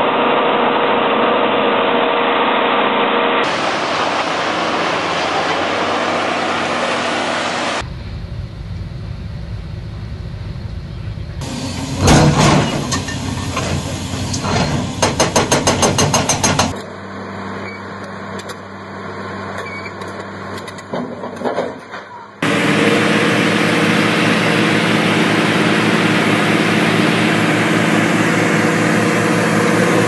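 Diesel engines of heavy construction machinery (excavators, a motor grader) running across a string of short clips that change abruptly. In the middle comes a run of rapid sharp knocks and clanks.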